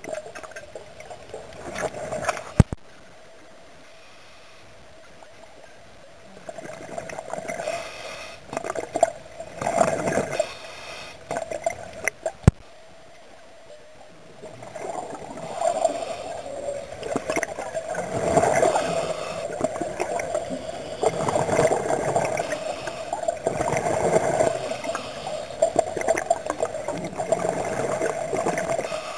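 Underwater scuba breathing: exhaled bubbles from a regulator gurgle in bursts a second or two long, with pauses between breaths and a steady hum underneath. Two sharp clicks come through, one a few seconds in and one near the middle.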